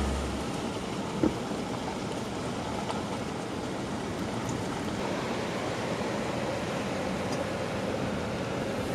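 Steady rushing of a glacial river's flowing water, with a single short knock about a second in.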